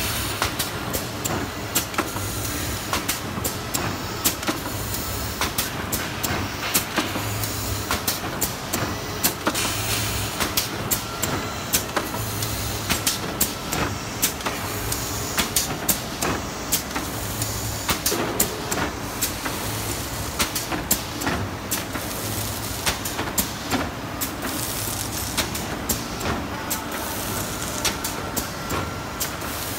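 CHOVYTING CW-800HCB isothermal bag cutting machine running: a steady mechanical clatter with a low thud about every second and a half as it cycles, many sharp clicks, and now and then a brief hiss of air.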